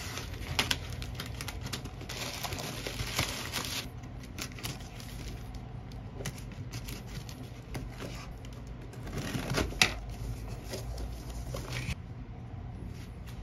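Scissors snipping through a plastic courier mailer and the plastic bag rustling as a cardboard box is worked out of it, with irregular clicks and handling knocks; one sharper click about ten seconds in.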